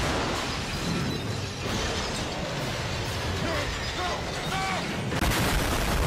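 Cartoon action sound effects: a dense, noisy rumble with a few short rising tones, then a sudden loud blast near the end as an explosion.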